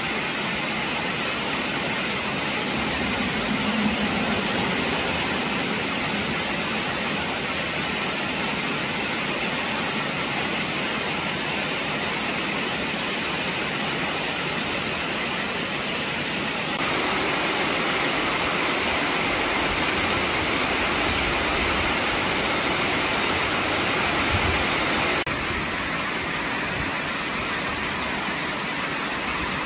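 Heavy rain falling steadily: an even hiss of rain on leaves and surfaces, a little louder from about the middle and quieter again near the end. Near the end a stream of rainwater pours from a pipe.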